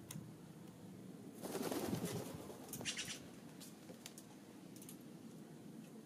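A bird's wings flapping at a seed-block feeder: a whoosh of wingbeats about a second and a half in, followed about a second later by a shorter, higher-pitched flutter.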